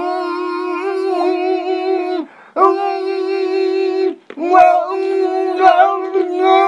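A man's voice chanting 'tere-re-re' on one flat, pitch-corrected note, as in a G-major meme edit, in three long held stretches broken by short gaps about two and four seconds in, turning choppier near the end.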